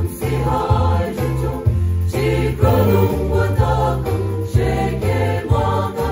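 Mixed choir of men and women singing together through a PA system, over an accompaniment with a low bass line on a steady, regular beat.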